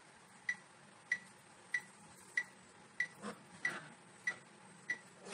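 Workout timer ticking: short, evenly spaced electronic ticks, about three every two seconds, pacing the exercise.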